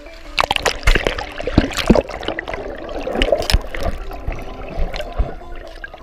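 Shallow seawater splashing and sloshing against a half-submerged camera as a sea turtle pushes into the surf. Sharp splashes are loudest in the first two seconds, and choppy water follows. Background music comes back faintly near the end.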